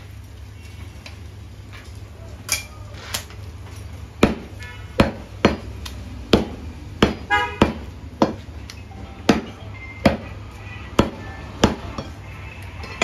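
A heavy butcher's cleaver chops beef on a wooden chopping block. There are a couple of separate blows, then from about four seconds in a run of sharp strikes, one to two a second, over a steady low hum.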